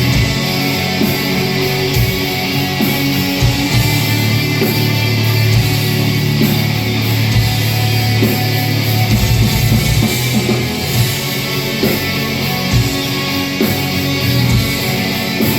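Black metal band playing live: loud distorted electric guitars holding a low sustained chord over steady drum hits, recorded from the audience on a phone.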